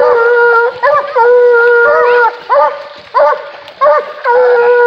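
Coonhounds baying. Long, steady drawn-out bawls alternate with short chop barks, and at times two hounds' voices overlap.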